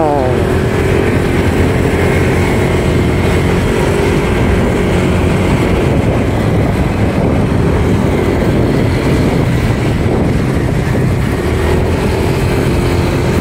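Riding a motorcycle on a wet road: a steady rush of wind and road noise over the phone's microphone, with the engine droning underneath.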